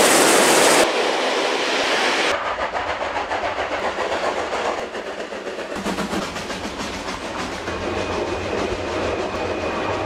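Steam trains passing close: first a loud rush of steam and noise from a large steam locomotive, then a fast, even clatter with a low rumble as a narrow-gauge steam train works by.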